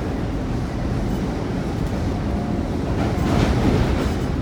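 Running noise of an Amtrak Capitol Corridor train heard inside the passenger car: a steady rumble of wheels on rail with a hiss over it, swelling louder about three seconds in as something passes close by the window.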